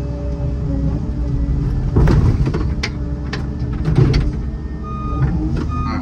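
Excavator engine running steadily under hydraulic load as the bucket digs and curls up out of a stump hole, with louder stretches of scraping and sharp clunks about two and four seconds in.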